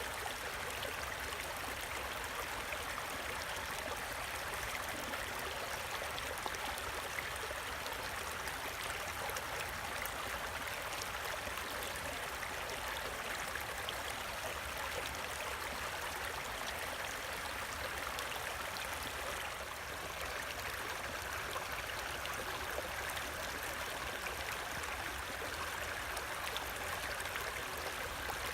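Creek water running steadily, an even rushing and splashing of the current.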